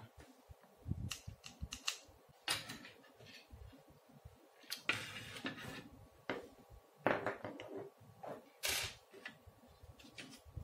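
Scattered light clicks, taps and short scrapes from handling a precision screwdriver and a plastic screwdriver-bit case, to undo the screws of a 2.5-inch laptop hard drive.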